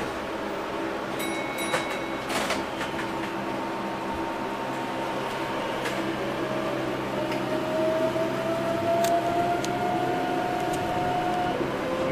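Electric train pulling away, heard from behind the driver's cab: a steady hum with a few clicks early, then from about six seconds in a traction-motor whine that slowly rises in pitch as the train gathers speed, dropping back and starting to rise again near the end.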